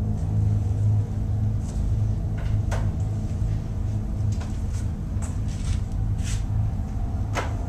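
A steady low hum with a dozen or so short, sharp clicks and knocks scattered over it.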